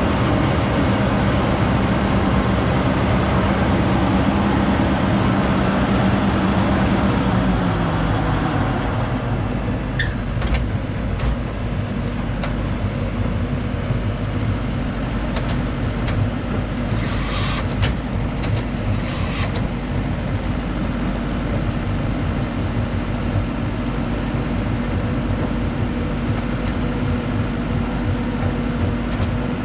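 Diesel engine of a Gregoire G106 grape harvester running steadily, its note dropping about seven seconds in, with scattered clicks and two short hisses midway.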